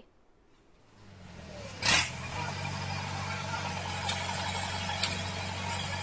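Diesel engine of a backhoe loader running steadily as it clears demolished shacks, fading in after a second of near silence, with one short loud burst of noise about two seconds in.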